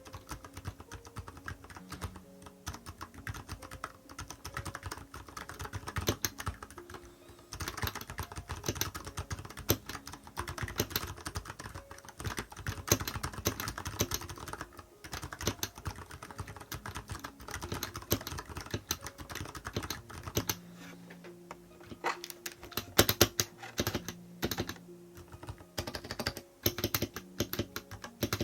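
Continuous fast typing on a Nuphy Halo 65 mechanical keyboard fitted with silent brown tactile switches, a dense run of muffled keystrokes. In the last third the typing breaks into separate bursts with a few sharper strokes.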